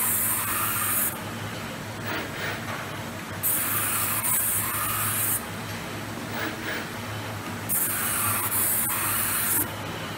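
4-axis CNC car-mirror glass cutting machine running: a steady low hum with three bursts of high hiss, each about two seconds long and roughly four seconds apart.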